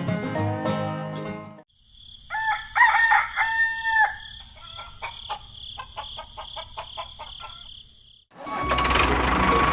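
A banjo music sting ends, then a rooster crows about two seconds in, followed by a string of short clucks and chirps over a steady high-pitched chirring. Near the end a loud, noisy machine starts running.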